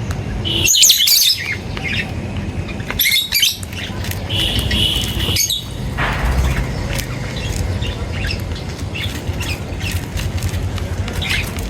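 Birds chirping and calling. Several loud, sharp calls come in the first half, with one held high note about four seconds in and scattered smaller chirps after it. A steady low rumble runs underneath.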